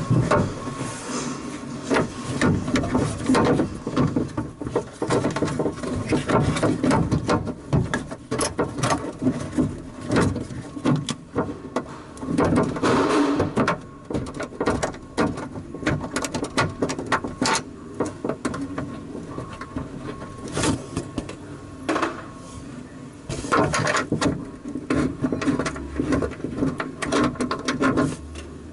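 Irregular clicks, knocks and scraping of metal parts being handled, as a door latch and lock actuator assembly is worked back into place inside a car door.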